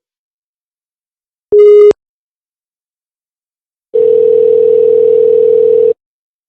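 A short, loud electronic beep, then a couple of seconds later one steady two-second ring of a telephone ringback tone with a slight warble, heard down the calling line while the far phone rings.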